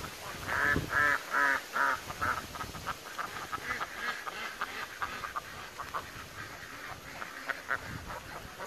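A flock of ducks quacking on the water: a run of about five loud quacks in the first two seconds or so, then softer, scattered quacking from several birds.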